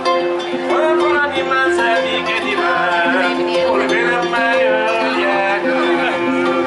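Music led by plucked string instruments over a repeating pattern of held low notes.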